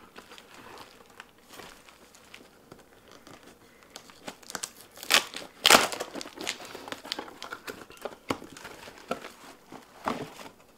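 Cardboard product box and its packaging being opened by hand: crinkling and rustling, with a few sharp, louder crackles about five to six seconds in.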